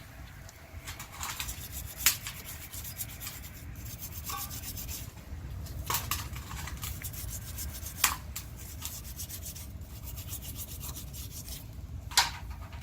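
Rapid back-and-forth scraping strokes, like brushing or filing away at a part, broken by a few sharp clicks or knocks.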